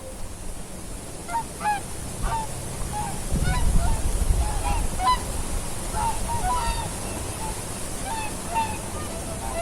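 A flock of geese honking, many short overlapping calls throughout. A gust of wind rumbles on the microphone a few seconds in.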